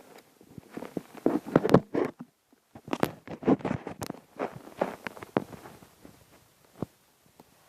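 An elderly man snoring in his sleep: rough, rattling breaths in irregular bursts of about a second each, with a few sharp clicks among them.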